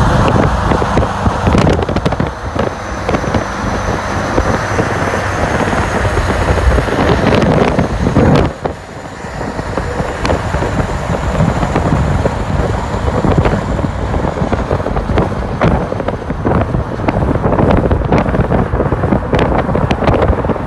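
Heavy wind buffeting on the microphone and road noise from a car at speed, crackling with sudden knocks, with a Scania 143 lorry and its V8 engine running close by. The buffeting briefly drops away about eight seconds in.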